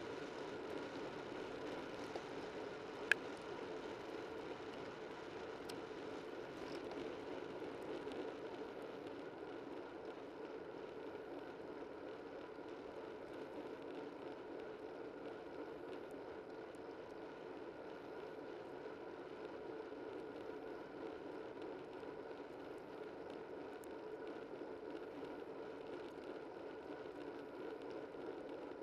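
Steady rushing noise of a bicycle riding along a road: wind and tyre noise, with one sharp click about three seconds in.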